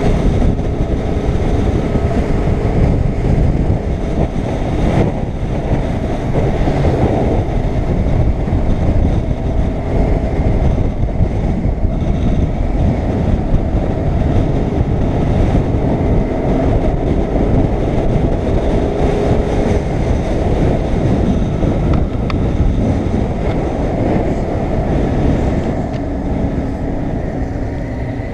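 BMW R850R's boxer-twin engine running steadily as the motorcycle rides along, mixed with wind rush on the microphone.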